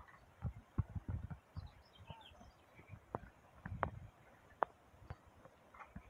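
Quiet outdoor air with scattered low thumps and several sharp clicks, most around the middle, and faint bird chirps in the background.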